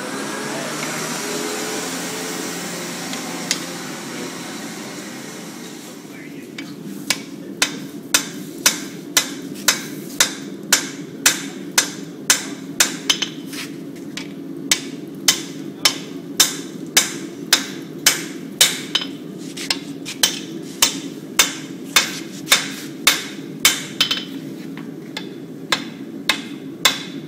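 Blacksmith's hammer striking steel on an anvil in a steady run of blows, about two a second, starting about seven seconds in. Before that there is a rushing noise.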